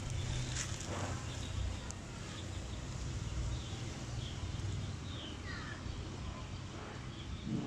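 Outdoor ambience: a steady low rumble, like wind on the microphone, with faint bird chirps scattered through it.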